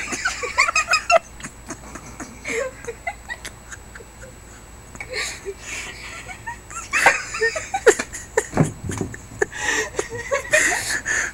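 People laughing and giggling in short bursts, with a quick run of laughs at the start and more laughter later on.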